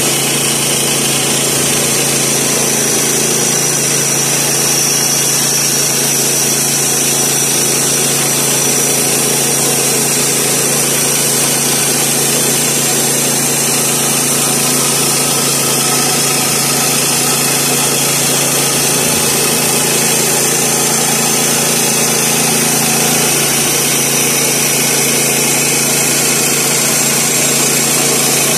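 Woodland Mills HM122 portable bandsaw mill's 7 hp gas engine running steadily under load as the band blade saws lengthwise through a sycamore log.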